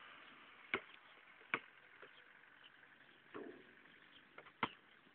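Basketball bouncing twice on an asphalt court, two sharp slaps about a second apart. After the shot there is a single louder knock near the end as the ball comes off the hoop.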